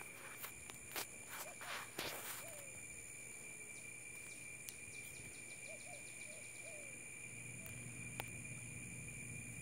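Steady insect drone in several high pitches, with a few sharp clicks in the first couple of seconds and faint short calls now and then.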